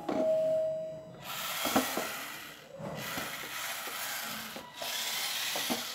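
A homemade RC car's two small DC motors running in spurts as the transmitter stick is worked, the wheels grinding and rubbing on the tiled floor. It comes in three runs with short breaks between them, after a brief steady whine in the first second.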